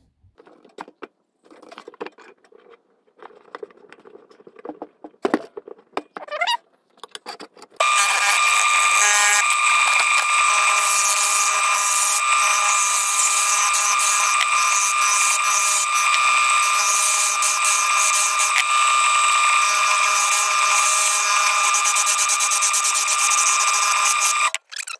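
Clicks and knocks as a wooden blank is fitted into a JET mini wood lathe, then about eight seconds in the lathe starts and runs steadily with a high whine, dropping out briefly near the end.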